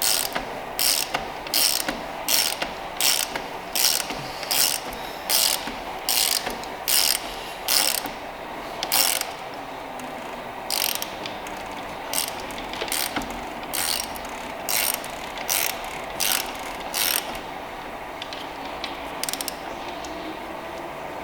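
Ratchet wrench clicking in short repeated strokes, about one stroke every three-quarters of a second, as the oil filter housing cap is screwed down. The strokes pause briefly just past the middle, then thin out and stop near the end.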